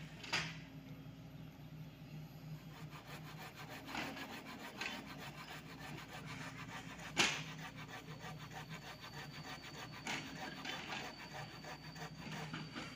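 Sany SY55C mini excavator's diesel engine running steadily as it digs and lifts soil, with several sharp clanks and scrapes of the bucket and arm working, the loudest about seven seconds in. A thin high whine joins about eight seconds in.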